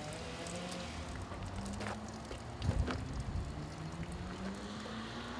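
Portable sawmill running, its engine humming steadily and slowly rising in pitch, with a few sharp knocks along the way.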